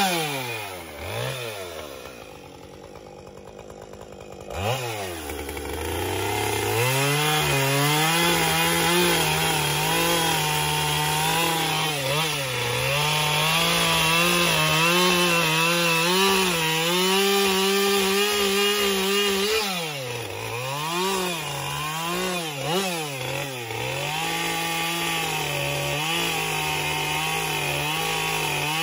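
Husqvarna two-stroke chainsaw cutting into a wooden log. It falls to a quieter idle for a few seconds near the start, then revs up and runs at high speed under load, with the revs dipping and climbing again several times about two-thirds of the way through.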